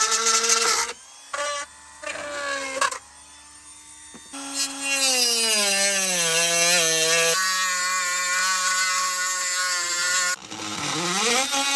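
Cordless Dremel rotary tool with a cutoff wheel cutting a round hole through a truck camper's wall: a high motor whine that stops and starts several times, its pitch sagging as the wheel bites into the wall and rising again as it frees up.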